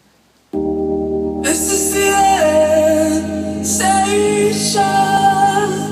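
Live music at a sound check: a singer's voice over held, sustained chords. The chords come in about half a second in, and the voice enters about a second later.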